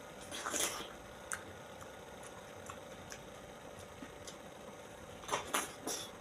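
Person eating juicy fruit: a few short wet slurping and smacking bursts about half a second in and again near the end, with small ticks between, over a faint steady hum.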